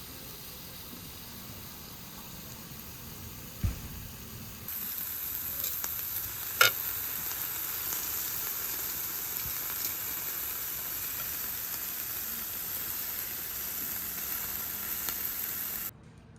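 Food sizzling on a barbecue grill, a steady hiss that gets louder about five seconds in, with a short knock just before and a sharp click soon after.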